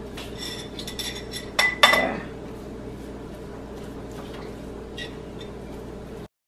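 Basting brush knocking and clinking against a ceramic bowl of basting sauce, several sharp ringing clinks in the first two seconds, the loudest near two seconds in, then only a faint tap.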